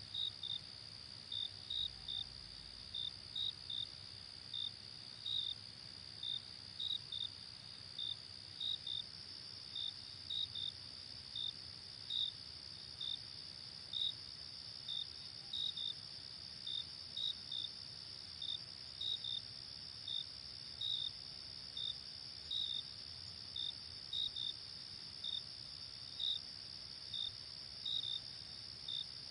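Chirping insects, likely crickets: short high chirps, one or two a second in an uneven rhythm, over a steady high-pitched insect trill.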